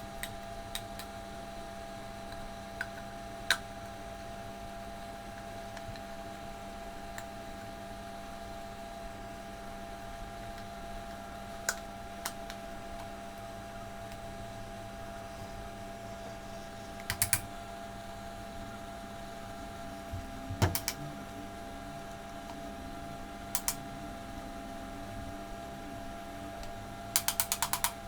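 Scattered light clicks and taps, a few of them in pairs, with a quick run of clicks near the end, over a steady hum made of several fixed tones.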